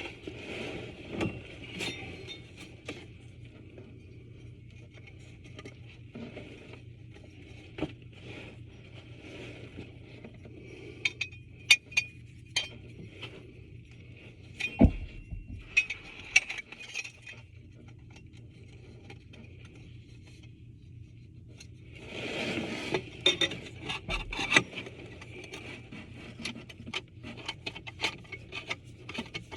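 Clinks, taps and scrapes of tub drain fittings and tools being handled and fitted together, with sharp clicks in the middle and a denser burst of scraping and rattling near the end. A faint steady low hum runs underneath.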